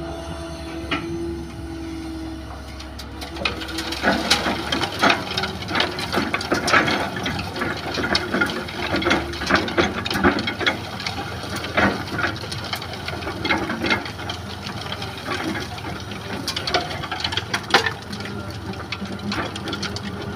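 Hitachi hydraulic excavator's diesel engine running steadily while its bucket dumps soil and sand onto a sieve screen over a dump truck. From about four seconds in, the falling clumps and stones strike the screen in a dense run of small knocks and clatter over the engine drone.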